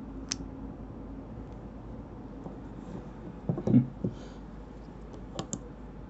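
Light clicks and knocks of knives being handled, as a small metal keychain knife is set against the blade of a large folding knife. One sharp click comes just after the start, a brief louder low sound about three and a half seconds in, and two sharp clicks near the end.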